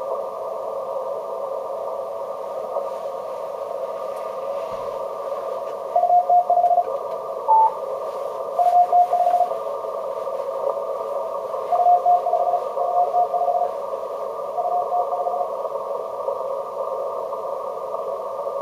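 Yaesu FT-950 HF transceiver receiving a Morse code (CW) signal on the 15 m band: a steady band of receiver hiss, through which keyed beeps come in several short runs from about six seconds in.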